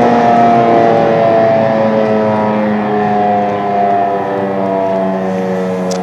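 Model 5 electromechanical outdoor warning siren sounding its steady Alert tone, a loud held note with several overtones that sags slowly in pitch.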